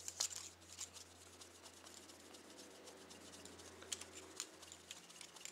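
Cleaning rod with a dry patch being worked back and forth through a handgun barrel: faint scraping with scattered light clicks of metal.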